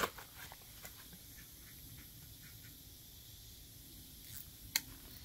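Nylon zip ties being fastened and trimmed: scattered small ratcheting clicks and ticks, with a sharp click at the start and another about three-quarters of a second before the end.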